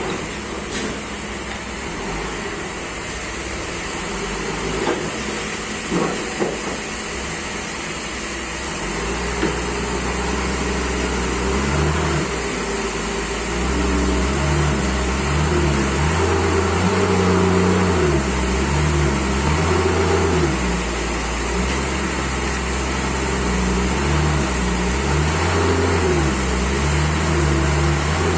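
Forklift engine running, at first low and steady, then from about a third of the way in revving up and down repeatedly as it pushes a huge merbau log. A few short knocks sound a few seconds in.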